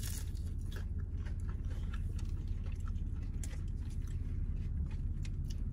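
A person chewing a mouthful of fast food close to the microphone: irregular small clicks and smacks of the mouth, over a steady low hum.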